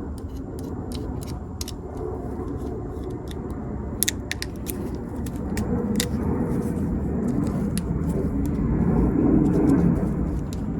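Old wiring and its plastic loom being handled and pulled out by hand: scattered clicks and crinkles, with a sharper crack about four seconds in, over a steady low rumble.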